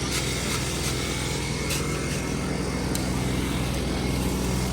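Heavy diesel engine of a concrete pump running steadily during a pour, with a few faint clicks.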